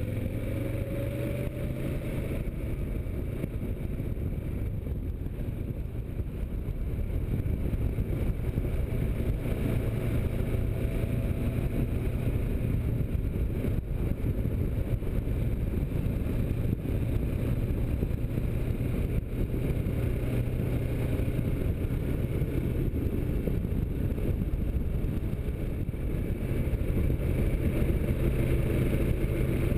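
Kawasaki Versys motorcycle engine under way at road speed, with a dense low rumble of wind over the microphone. The engine note rises over the first couple of seconds as the bike accelerates, then holds steady at a cruise, getting a little louder near the end.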